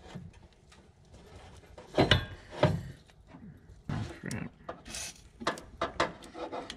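Clicks and knocks of hands handling an AC hose fitting and a spray can, the loudest about two seconds in. About five seconds in comes a short hiss of WD-40 sprayed through its straw onto the fitting's O-rings to lubricate them.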